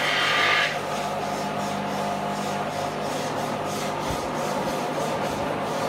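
Wooden door panels being slid and scraped over a concrete floor as they are laid out and fitted together, over a steady low hum. A louder rushing noise cuts off under a second in, and a panel knocks down once a little past the middle.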